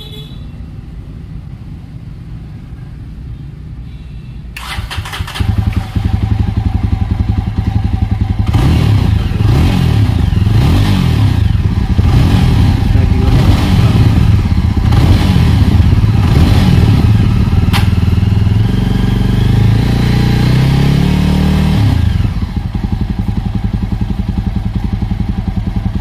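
Jawa 42 Bobber's 334 cc single-cylinder engine running through its exhaust. It idles at first, is revved up repeatedly with rising and falling pitch from about five seconds in, and settles back to idle near the end.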